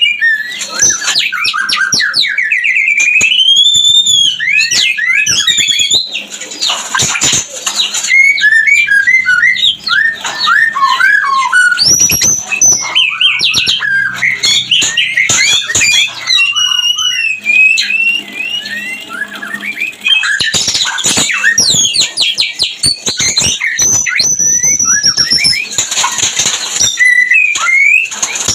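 White-rumped shama (murai batu) singing its breeding-season song: a continuous, varied run of loud whistles, rising and falling slurs and rapid chattering notes, with a few harsh clicks mixed in.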